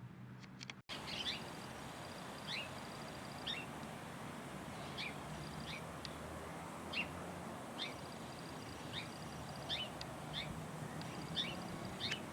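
Small songbird calling: short, high, downward-slurred chirps repeated about once a second over a steady outdoor hiss, cutting in abruptly about a second in.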